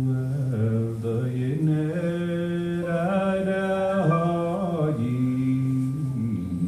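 Man singing slowly, holding long notes that step up and down in pitch, with a rise to a higher held note about three seconds in.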